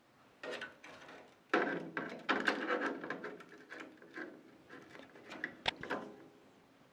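Clicks, knocks and rustling of a 2.5-inch SSD and its metal drive tray being handled and fitted into a PC case, busiest in the first half, with a few sharp clicks near the end.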